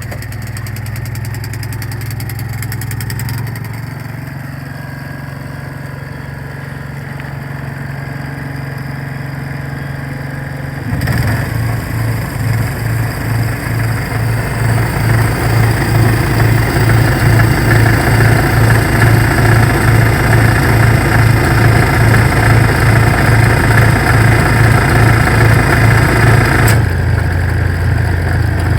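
Yanmar YGC6SS engine-driven generator and air compressor running steadily. About 11 seconds in it turns louder, with an even pulsing beat and a rush of noise: the compressor working under load as air is discharged. Near the end the noise drops away and the engine runs steadier again.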